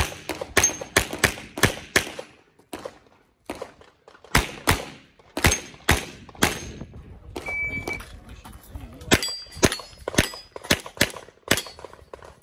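Pistol shots fired in fast strings of several shots each, with short pauses between strings, and steel targets ringing briefly when hit.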